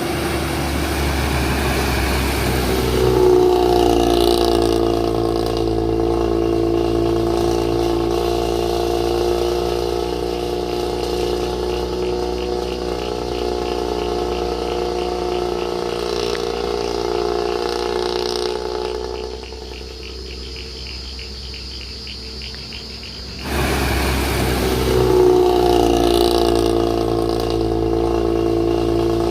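The diesel engine and 'snoring' (ngorok) exhaust of a Nissan CB87-chassis bus pulling under load. Its note rises about three seconds in and holds steady. About twenty seconds in it drops quieter for a few seconds, then pulls again with a rising note.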